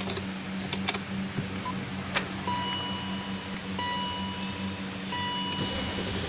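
Electronic warning beep from the 2001 BMW M5's instrument cluster, sounding with the ignition on and the engine not running, repeating about every second and a half from a couple of seconds in. Under it is a steady low hum, and a few sharp clicks come in the first two seconds.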